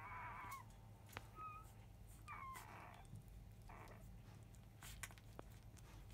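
Newborn Labrador retriever puppies squeaking faintly while nursing: a high whine at the start, then a few short squeaks over the next four seconds, with small clicks in between.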